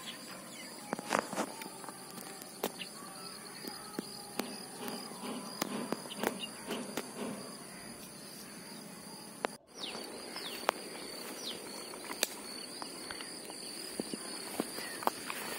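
Faint outdoor ambience: a steady high insect trill, with scattered light taps and rustles as small fish are picked up off dry mud and dropped into a plastic bag. The sound drops out for an instant near the middle.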